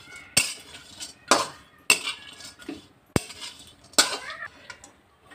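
A spoon scraping and clinking against a pan as dried coconut is stirred while roasting: sharp, irregular strokes about once a second.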